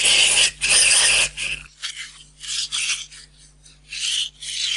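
Renault 4L brake proportioning valve being scraped and scrubbed clean by hand with a small tool, a run of rasping strokes that are dense for the first second and a half, then shorter and more spaced out.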